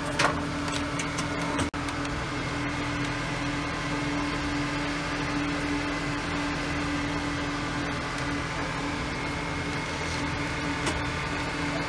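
Steady mechanical hum with a constant low tone, like a running fan or appliance motor, with a short louder sound just after the start and a momentary cut in the sound a little under two seconds in.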